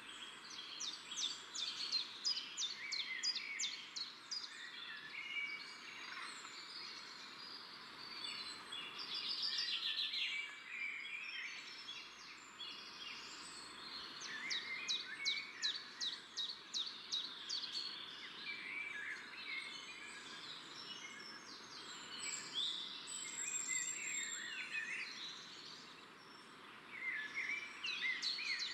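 Many small birds chirping and twittering together, with repeated quick runs of rapid notes, over a steady hiss.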